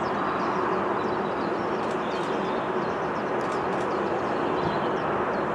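Twin jet engines of an Airbus A320-family airliner at takeoff power, a steady roar as it rolls down the runway and lifts off. Small birds chirp over it.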